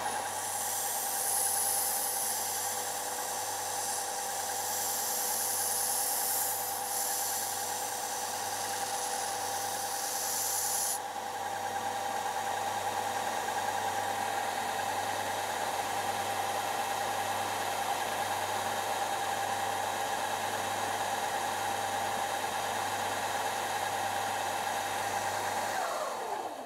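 Electric belt sander with a narrow-belt attachment running with a steady whine, while the blades of a Hastelloy X nickel-alloy turbine wheel blank are sanded on the belt: a hiss of metal on the abrasive for about the first eleven seconds, which then cuts off suddenly. Near the end the motor is switched off and its whine falls away as it spins down.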